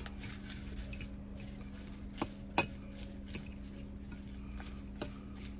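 Metal fork tossing salad greens in a ceramic bowl: soft rustling of the leaves with a few sharp clinks of the fork against the bowl, the loudest about two and a half seconds in. A steady low hum runs underneath.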